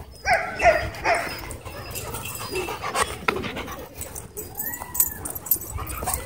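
Dogs vocalizing while play-fighting over a tug toy: three short yips just under a second in, and a whine that rises and falls around five seconds.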